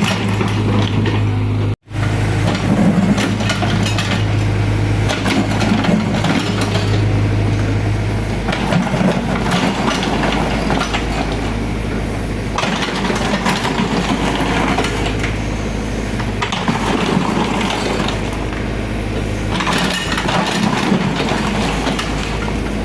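Excavator's diesel engine running steadily, with heavier, rougher noise from the working machine swelling and fading every few seconds. The sound cuts out for an instant about two seconds in.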